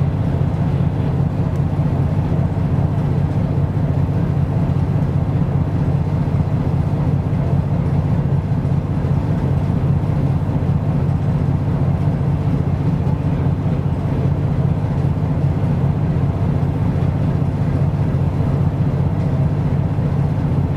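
Ship's engine running with a steady, low drone, heard from on board.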